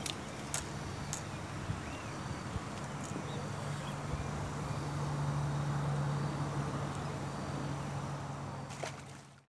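Outdoor ambience with a steady low hum that grows louder midway, a few sharp clicks in the first two seconds and faint chirps; the sound cuts off suddenly near the end.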